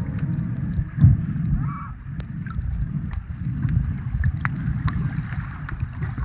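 Muffled underwater sound picked up by a camera in the sea: a low rumbling wash of water with scattered small clicks, and a thump about a second in.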